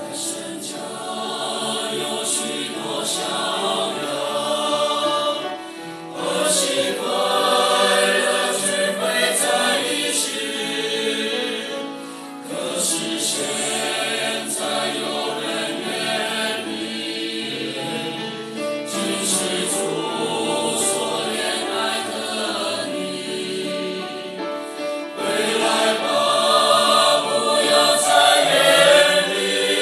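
Mixed church choir of men and women singing a hymn together, in long phrases with brief dips between them.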